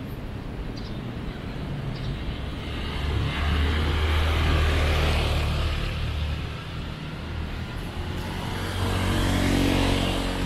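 Two road vehicles drive past one after the other, each a swell of engine hum and tyre noise that rises and fades. The first passes about three to six seconds in, the second near the end.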